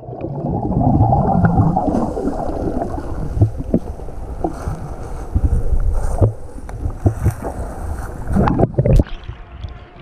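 Underwater sound heard through an action camera held below the sea surface: a muffled low rushing of water with bubbling and many small knocks. Near the end comes a louder rush of water as the camera breaks the surface.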